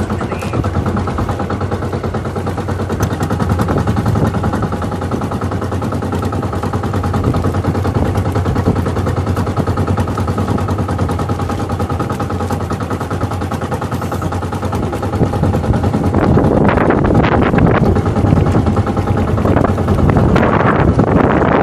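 Outrigger boat's engine running steadily, a rapid, even putter. From about 16 seconds in, gusts of wind buffet the microphone over it.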